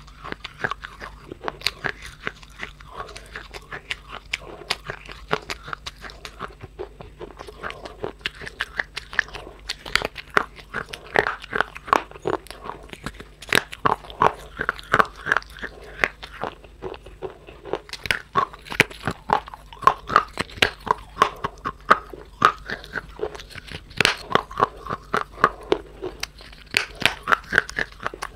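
Continuous crisp crunching of something brittle being crushed, several sharp crackles a second.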